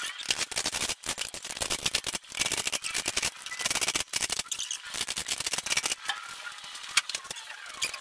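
Cordless power driver running nuts onto the carriage bolts of a steel plow mounting plate, a rapid rattling in about three bursts of two seconds each, then a few lighter clicks.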